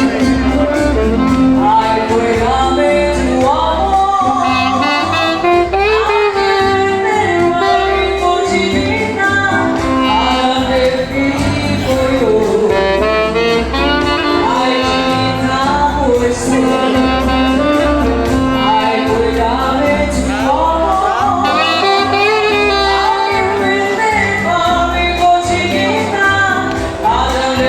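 Wedding band music: a lead melody over a steady bass beat.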